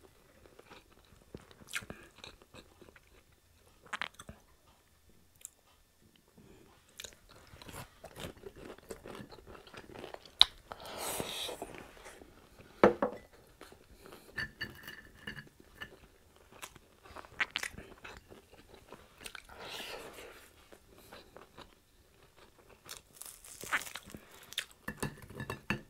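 A person chewing and crunching crispy fried pork chop, in irregular bursts of crunching and small clicks with quiet pauses between bites.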